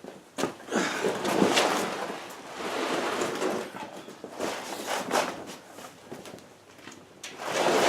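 Large plastic garage floor containment mat being handled and shifted on a concrete floor: irregular rustling and scraping swishes with a few knocks.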